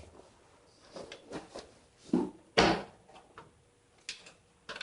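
A Sapphire R7 265 graphics card being handled and pushed into its motherboard slot: scattered light knocks and clicks, with two louder clunks a little past two seconds in as the card is pressed home.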